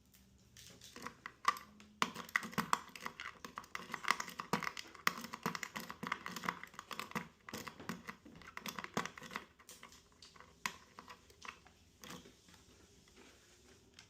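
Rapid small metallic clicks and scratches from a Honeywell lockbox's lock being worked open. They come thickest over the first two-thirds and thin out to scattered clicks near the end.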